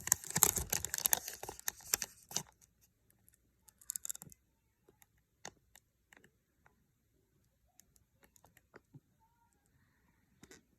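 Trading cards being handled and flipped through by hand: a quick run of clicks and rustles for the first couple of seconds, a short cluster of clicks about four seconds in, then only scattered soft ticks.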